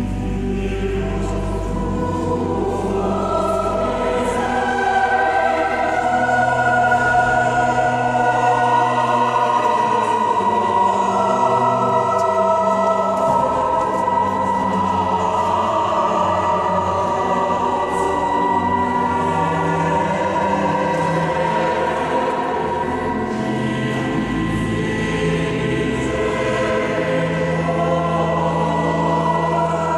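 A choir singing slow, long-held chords, resonating in a large stone cathedral.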